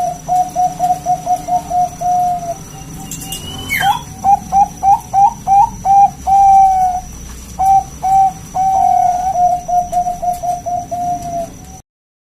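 Zebra dove (perkutut) cooing: quick runs of short, evenly repeated coo notes broken by a few longer drawn-out notes, with a brief rising whistle about four seconds in. The sound cuts off abruptly near the end.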